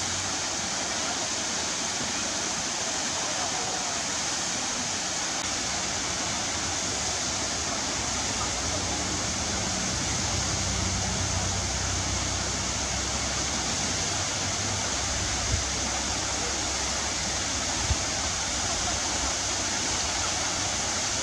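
Waterfall: a steady, even rush of falling water. A deeper rumble grows stronger from about nine seconds in, and two short low thumps come in the second half.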